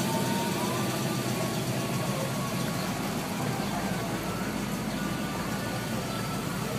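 Chevrolet El Camino engines running at a crawl as the cars pass, a steady low rumble that deepens about halfway through as the next car comes up.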